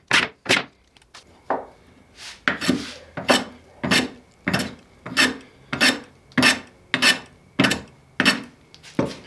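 Hand plane taking short, regular strokes along the corners of a wooden handle blank, about one and a half strokes a second, each stroke peeling off a shaving. The blank is being planed from square to a rough octagon.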